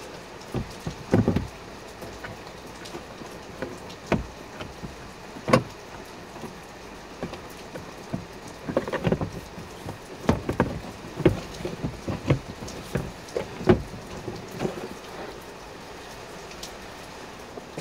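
Hard plastic clicks, knocks and rattles of a Jeep Commander's glove box bin being handled and worked free of the dashboard. The sharp taps come at irregular times, in clusters, over a steady hiss.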